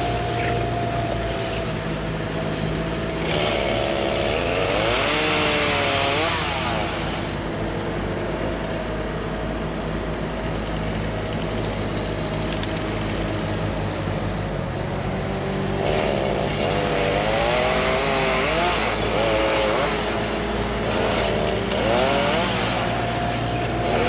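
A vehicle engine running throughout. Its note wavers and glides up and down in two spells, one a few seconds in and a longer one in the second half.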